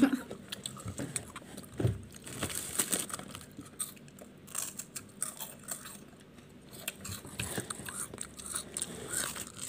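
Nabati chocolate wafers being bitten and chewed: crisp crunching crackles and clicks that come and go.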